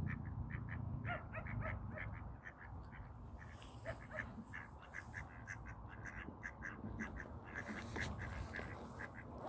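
Ducks quacking in a steady run of short calls, several a second, over a low steady rumble.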